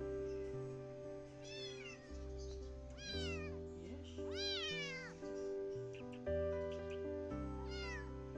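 A small calico kitten meowing four times, thin high cries that rise and then fall, over soft background music.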